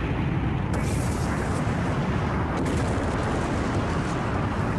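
Anime sound effect of a huge energy blast: a steady, heavy explosion rumble, with a brief brighter hiss about a second in.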